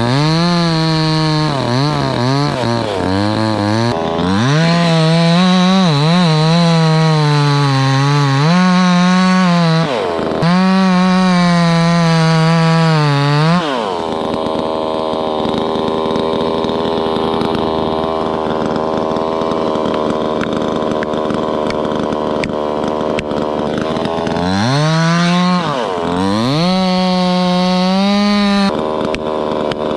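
Proyama PCX68 68cc two-stroke chainsaw with a 24-inch bar cutting into the base of an ash trunk at full throttle, its revs repeatedly dipping under load and recovering. About halfway through it drops to a steady idle. Near the end it revs up again for a few seconds, dipping, then falls back to idle.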